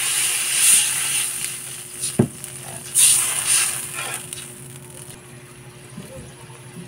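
Water poured into a hot metal wok of sautéed shrimp and shrimp paste, sizzling loudly, with a metal spatula knocking once against the pan and scraping as it stirs. The sizzle dies down over the last couple of seconds.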